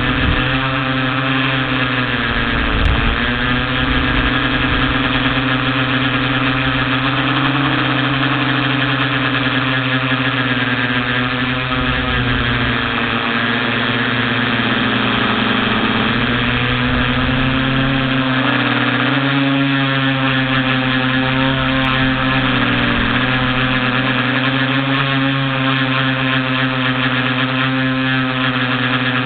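TBS Discovery quadcopter's electric motors and propellers whining in flight, heard close up from the onboard camera. The pitch slowly rises and dips as the throttle changes.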